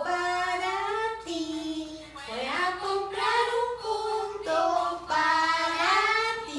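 A young girl and a woman singing a Spanish children's song about the vowels, in long held notes with short breaks between phrases.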